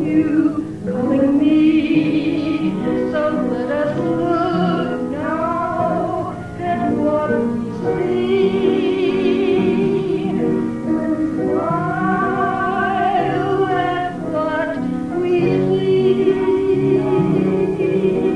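A woman singing a slow melody with vibrato, holding long notes, over sustained Hammond B3 organ chords. The recording is a live performance restored from an old cassette.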